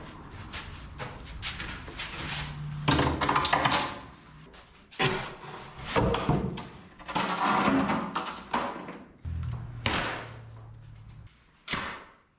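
Heavy wooden planks being pulled off a cinder-block wall and stood against it: repeated knocks, thuds and scraping of wood on block and floor, over background music.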